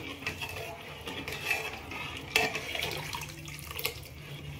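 A steel spoon stirring a thin mixture of rice flour, coconut and sugar water in an aluminium pot, the liquid sloshing, with a few light clinks of the spoon against the pot.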